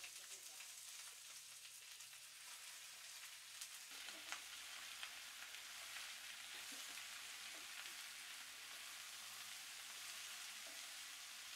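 Faint steady sizzle of leafy greens stir-frying in a pan, with a few light clicks of a wooden spatula against the pan around four to five seconds in.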